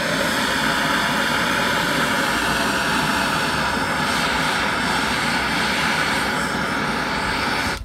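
A loud, steady mechanical whirr from a motor-driven machine, its pitch falling slowly, cutting off abruptly near the end.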